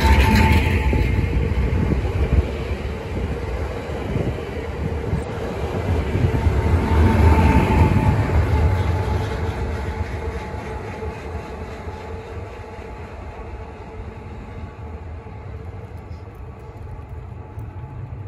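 Pesa Elf electric multiple unit pulling away: a low rumble with a steady high whine, swelling about seven seconds in and then fading as the train draws off into the distance.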